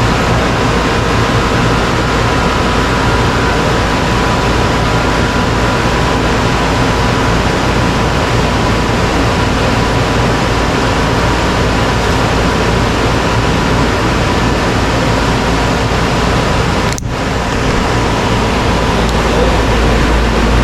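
1983 Whirlpool heat pump running steadily in cooling mode just after start-up: a low compressor hum under the even rush of the condenser fan, with a steady tone on top. The sound briefly dips about 17 seconds in.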